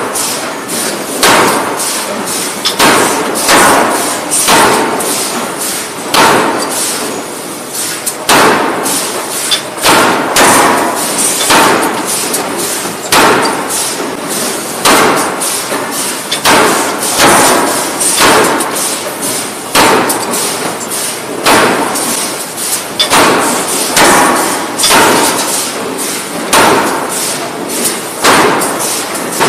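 Closed-die forging hammer striking red-hot steel table-knife blanks in its dies, with heavy metallic blows about once a second, each ringing briefly.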